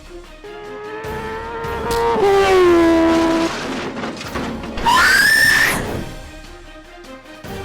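Background music: a held note that slides down in pitch about two seconds in, then a short rising sweep about five seconds in.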